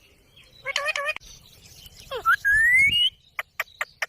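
Indian ringneck parakeet calling: a short harsh call about a second in, then a whistle that dips and glides upward, and a quick run of about five sharp chirps near the end.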